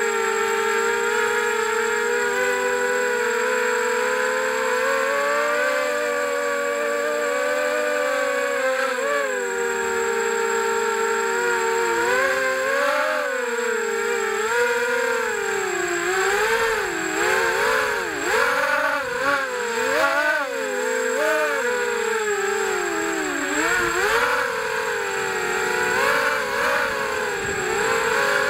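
FPV quadcopter's electric motors and propellers whining, heard through its onboard camera. The pitch holds fairly steady at first, then from about ten seconds in it wavers quickly up and down with the throttle.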